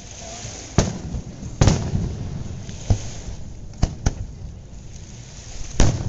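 Aerial fireworks display: a series of sharp booms from shells launching and bursting, about six of them at irregular intervals, with a low rumble carrying on between them.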